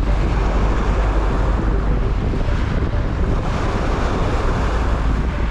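Steady wind buffeting the microphone over surf washing onto the shore.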